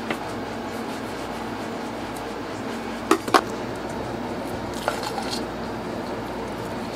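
A metal spoon clinks twice against a stainless steel bowl while scooping egg salad, with a lighter clink about two seconds later, over a steady background hum.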